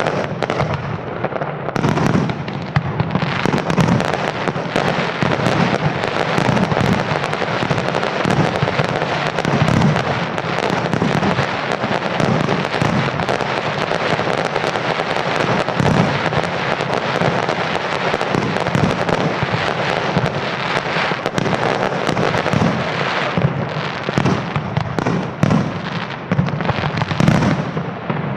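A dense, continuous barrage of aerial fireworks: many shells bursting and crackling at once, with no break.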